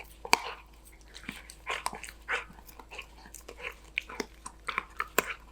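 Golden retriever puppy chewing and biting a treat: irregular crunches and sharp mouth clicks, the loudest about a third of a second in.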